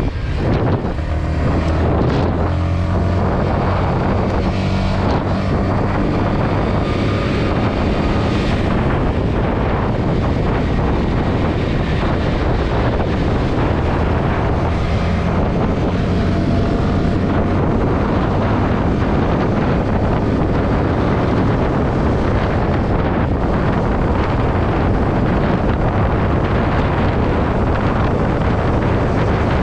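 Yamaha XSR125's single-cylinder four-stroke engine running while the bike is ridden, with heavy wind noise on the microphone. The engine note stands out for the first nine seconds or so, then is mostly covered by the steady rush of wind.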